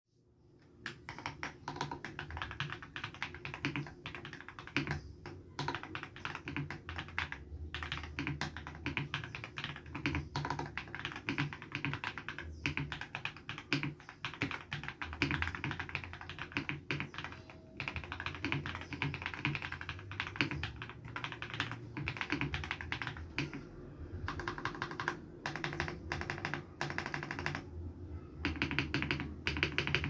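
Fast typing on an RK G68 mechanical keyboard with Krytox-lubed Akko CS Matcha Green switches in a foam- and tape-dampened case, a dense run of key clicks starting about a second in. In the last seconds the strokes turn to the modifier keys, whose stabilizers are clipped and lubed.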